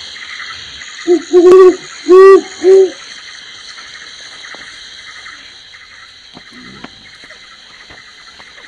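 An owl hooting four times in quick succession, starting about a second in, the first note short and the rest longer, over a steady high-pitched hiss of night ambience.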